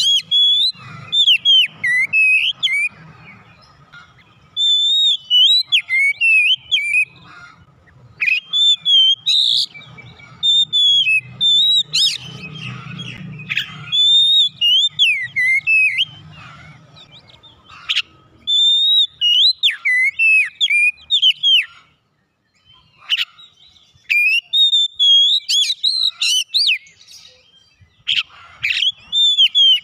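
Oriental magpie-robin (kacer) singing: loud, varied phrases of clear whistles and warbles that swoop up and down, delivered in bursts of a few seconds with short pauses between.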